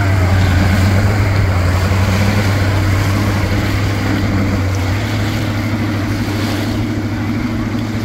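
Outboard motor running at a steady pitch, its propeller churning the shallow water into a rushing spray, fading slightly as the boat pulls away.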